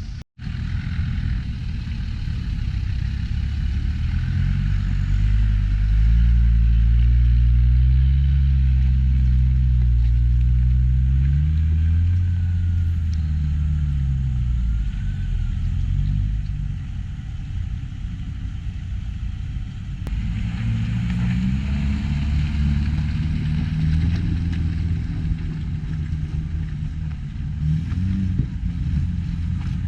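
Land Rover engine working off-road, its pitch climbing and falling back as the throttle is opened and eased, loudest a few seconds in and rising again about two-thirds of the way through.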